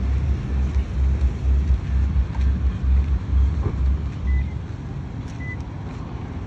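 Low, irregular rumbling of wind buffeting the phone's microphone, which eases about two thirds of the way through. A few faint, short high beeps come near the end.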